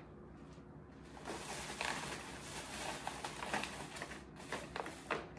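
Rustling of packaging and gift-bag items being handled, with a few light knocks.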